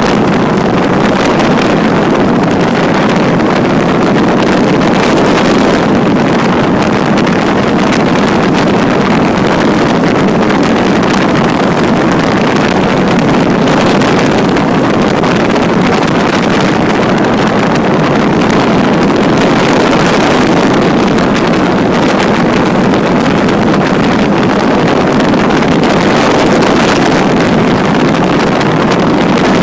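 Microlight trike's engine running with wind rushing over the microphone, a loud, steady drone as the trike comes in to land and rolls along the runway.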